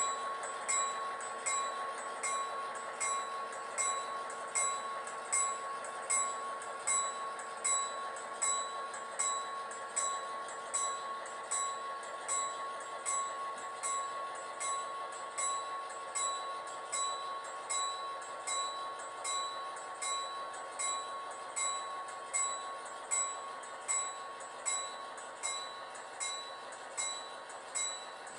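Model diesel locomotive's sound system ringing its bell, about three strikes every two seconds, over a steady engine hum as the locomotive creeps along the track.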